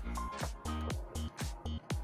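Background electronic dance music with a steady beat of kick drums, about two a second, over bass and synth notes.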